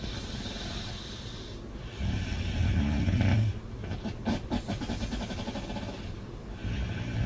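A woman snoring loudly with her mouth open: a breathy hiss, then a low rattling snore about two seconds in lasting over a second, and the next snore starting near the end.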